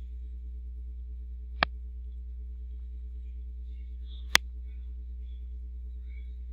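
Steady low electrical mains hum, with two sharp clicks about three seconds apart.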